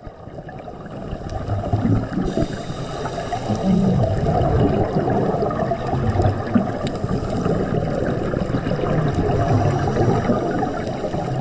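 Muffled water sloshing and gurgling around the camera, a steady low churning with irregular swells, fading in over the first second.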